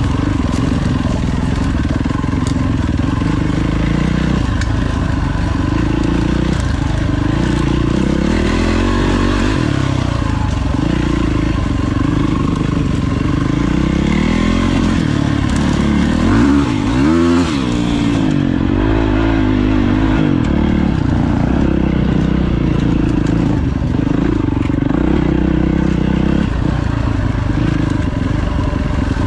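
Four-stroke single-cylinder dirt bike engine being ridden, the revs rising and falling over and over with the throttle. About two-thirds of the way through there is a quick run of sharp rev rises and drops.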